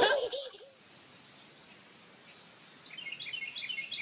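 Bird chirping: a quick run of short high notes about a second in, then a longer run of rapid chirps from about three seconds, over faint hiss. A loud pitched sound from the previous clip trails off at the very start.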